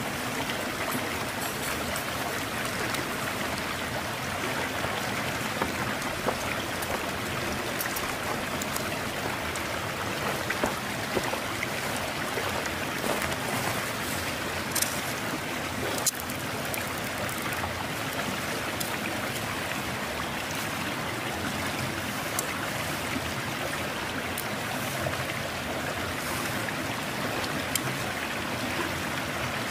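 Steak sizzling steadily on a fire-heated river stone, with a few sharp pops from the meat and fire.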